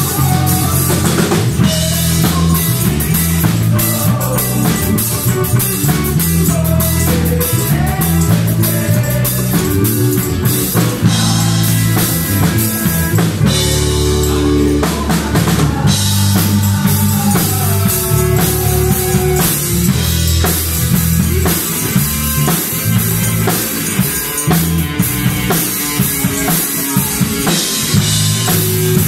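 Live band music: a drum kit keeps a steady beat under electric bass, electric guitar and keyboard.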